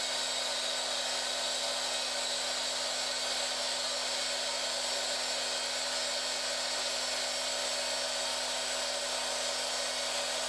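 MX-180D 7x12 mini metal lathe running steadily at one speed while its tool turns down a spinning aluminium bar, a continuous even machine whine with a steady hum under it.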